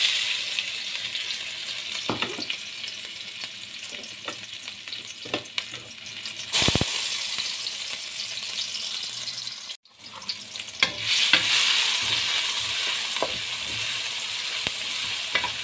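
A pounded paste of garlic, shallots, dried anchovies and red chilli sizzling in hot oil in a non-stick wok, with scrapes and taps as a spatula stirs it. The sizzle cuts out briefly about ten seconds in, then comes back.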